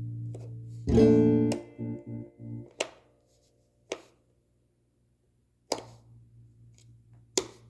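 Electric guitar with Seymour Duncan Zephyr humbucker pickups, played clean. A chord rings out, and a fresh strummed chord comes about a second in, followed by a few short choppy strums. The second half is mostly near silence, broken by a handful of sharp single pick or string clicks.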